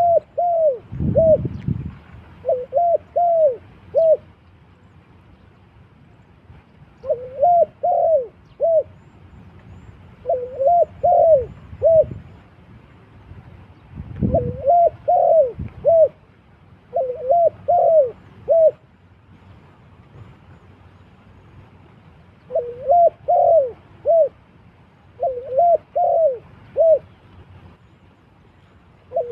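A dove, a spotted dove, cooing in repeated phrases of three or four notes, about eight phrases with pauses between them. Two low thumps come about a second in and about fourteen seconds in.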